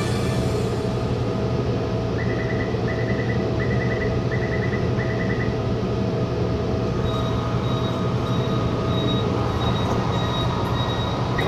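Taichung Metro Green Line train, a Kawasaki-built medium-capacity EMU, running with a steady low rumble. Between about two and five and a half seconds in there are five quick trills of short high electronic beeps, and in the last few seconds a faint high tone pulses on and off.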